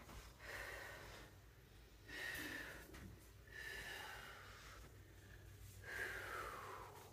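Heavy breathing from the strain of a low plank hold: four long, breathy exhales about a second and a half apart, the last one sliding down like a sigh.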